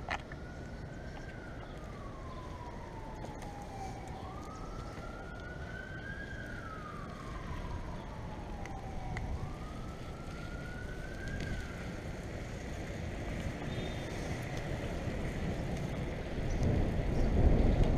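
Emergency-vehicle siren wailing, its pitch rising and falling slowly three times before fading out about two-thirds of the way through, over steady street noise. A low rumble grows louder near the end.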